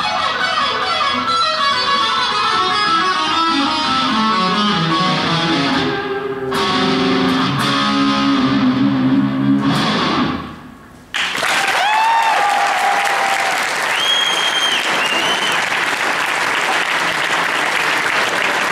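Solo electric guitar played through a small amplifier in fast runs of notes that fall in pitch, then slower, lower notes that fade out about ten seconds in. Straight after, an audience bursts into applause with cheers and a whistle or two.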